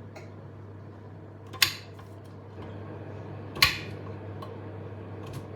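Kitchen knife and plate clinking twice, about two seconds apart, as fruit is cut, over a steady low hum.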